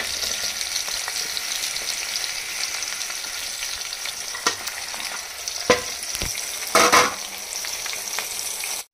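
Onions, green chillies and whole spices frying in oil in an aluminium pot with a steady sizzle as chopped tomatoes are tipped in. A few knocks sound, then a louder clatter near the end.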